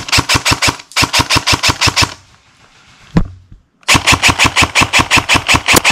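Airsoft rifle firing rapid full-auto bursts, about ten shots a second: two short bursts, a single knock about three seconds in, then a longer burst near the end.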